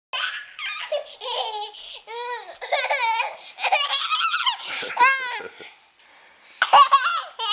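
A toddler laughing in a run of high-pitched squeals and giggles, with a short pause about six seconds in before another loud burst.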